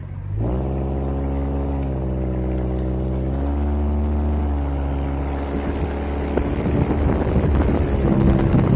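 A vehicle engine running at a steady drone, its pitch stepping up and down slightly a couple of times. Road and wind noise grows louder over the last few seconds.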